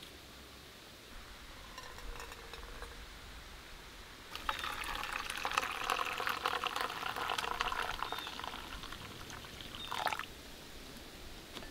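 Brewed coffee poured from a titanium pot through its French press lid into a metal mug. The stream starts about four seconds in, runs steadily, and tapers off about ten seconds in. A few faint light knocks come before it, as the pot is lifted.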